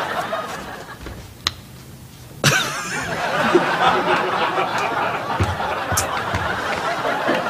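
Studio audience and cast laughing at a flubbed take: a lighter titter at first, then a sudden loud burst of crowd laughter about two and a half seconds in that keeps going.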